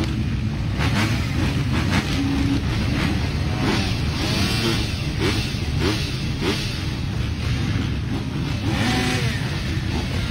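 Many motocross bike engines revving together on the start line, a dense mass of engine noise with pitches rising and falling as riders blip their throttles while waiting for the gate to drop.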